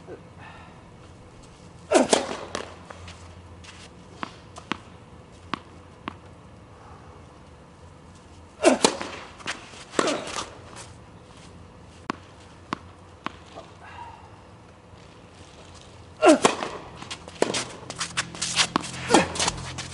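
Tennis racket striking the ball: sharp pocks several seconds apart, then a quicker exchange of shots near the end, with fainter taps between them like the ball bouncing on the court.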